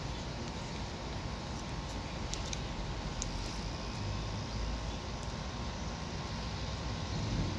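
Steady low outdoor background rumble, with a few faint clicks about two to three seconds in.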